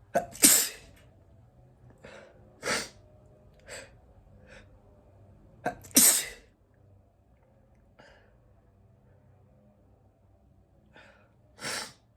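A person sneezing repeatedly. The two loudest sneezes come about half a second in and about six seconds in, each just after a short sharp breath in. Smaller bursts fall around three and four seconds in, and another sneeze comes near the end.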